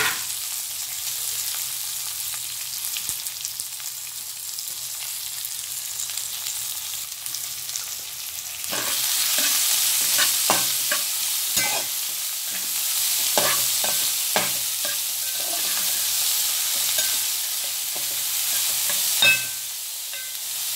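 Chopped cabbage, tomato, green chillies and curry leaves sizzling in hot oil in a metal kadai, the sizzle getting louder about nine seconds in as they are stirred. A spoon scrapes and knocks against the pan now and then, with one sharper knock near the end.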